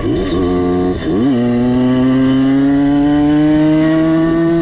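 Tuned 85 cc two-stroke engine of a Simson S51 moped pulling hard under throttle: revs climb quickly, drop briefly about a second in as a gear is changed, then the pitch rises slowly and steadily as it pulls through the next gear.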